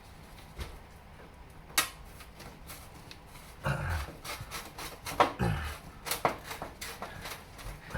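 Irregular clicks, knocks and scrapes of a hand tool working a screw in the metal back panel of an oven. There is one sharp click about two seconds in, and a busier run of knocks from about halfway.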